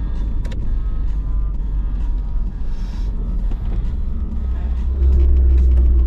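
Nissan 200SX S13's turbocharged CA18DET four-cylinder engine running as the car drives, a deep rumble that grows louder about five seconds in.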